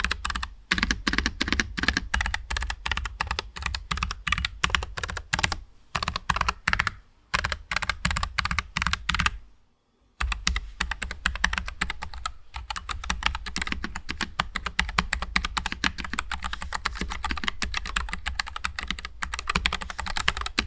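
Fast typing on a NuPhy Air75 low-profile mechanical keyboard, with a rapid run of key clicks broken by short pauses, the longest about ten seconds in.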